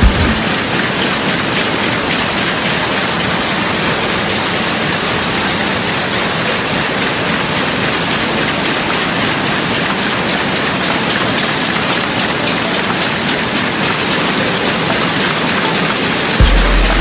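Sulzer loom running: a loud, steady, dense mechanical clatter that does not let up.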